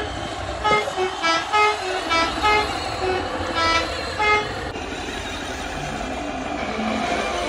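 Multi-tone musical truck horn of the Indonesian 'telolet' kind playing a quick tune of short notes, about three a second, over a steady rumble. The horn stops about four and a half seconds in and the rumble runs on.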